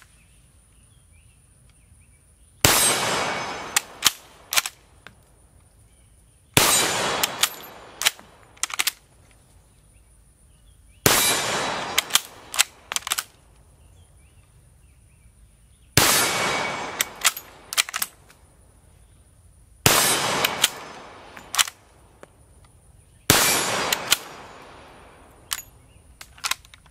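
1886 Lebel bolt-action rifle firing six shots, roughly four seconds apart. Each report echoes and fades over a second or so and is followed by a few sharp metallic clicks as the bolt is worked to chamber the next round.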